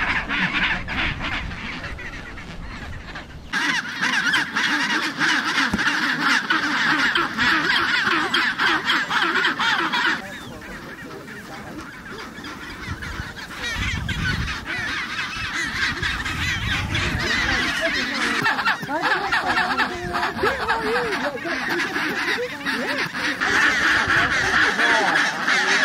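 Chinstrap penguin colony calling: many overlapping honking, braying calls. The chorus changes level abruptly, with a quieter stretch in the middle. Near the end an adult gives the loud head-up ecstatic display call.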